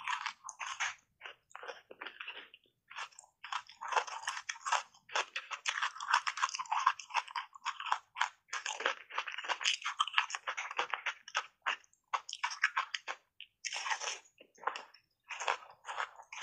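Ice chunks coated in matcha powder being bitten and chewed: many sharp crunches and cracks in quick runs, broken by brief pauses.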